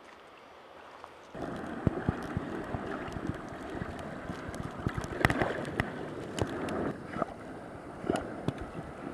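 Faint hiss, then about a second in, loud splashing and churning of sea water close to the microphone, with many irregular splashes, as a Newfoundland dog and a lifeguard swim in the surf.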